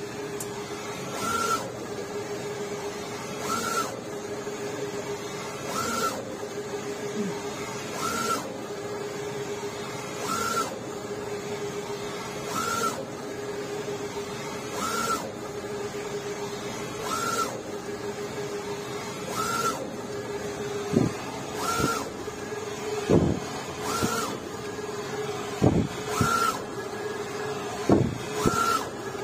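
UV flatbed inkjet printer printing four-colour onto wooden boxes: the printhead carriage makes pass after pass, one about every two and a half seconds, over a steady hum. In the last several seconds sharp knocks join in.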